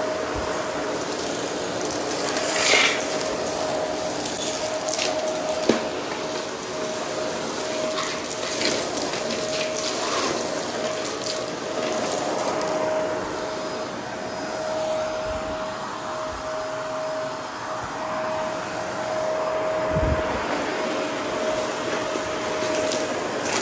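Shark Navigator upright vacuum running with a steady motor whine while picking up small debris off a bare concrete floor; its brushroll crunches and crackles as it hits the debris, giving scattered sharp clicks.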